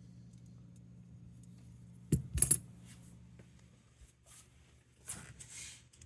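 Small metal parts clinking against each other and a hard surface: a quick cluster of sharp clinks about two seconds in, then a softer scraping rustle near the end.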